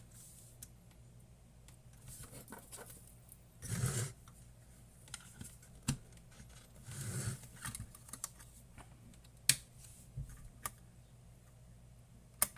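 Small clicks, taps and brief rustling or scraping as test leads are connected to an old electronic thermometer's power input, over a faint steady low hum.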